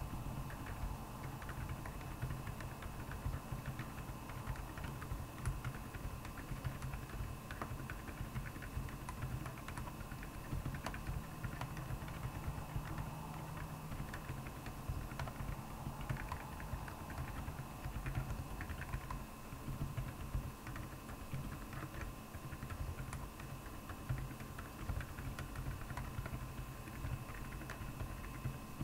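Typing on a Royal Kludge R75 mechanical keyboard with Akko Penguin silent tactile switches: a continuous stream of keystrokes.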